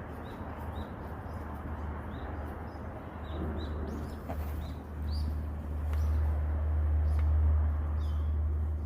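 Eurasian red squirrel (Korean grey form) giving a series of short, high alarm chirps, about one or two a second, startled and fleeing. Under them a low rumble swells and is loudest from about five to eight and a half seconds in.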